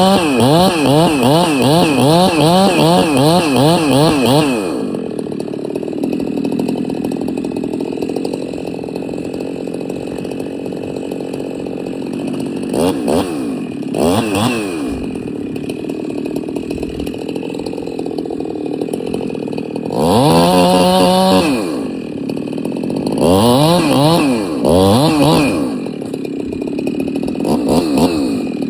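Chainsaw cutting wood at full throttle for the first few seconds, its engine note wavering under load, then dropping back to idle. Short revs follow now and then, with longer bursts of throttle about twenty seconds in.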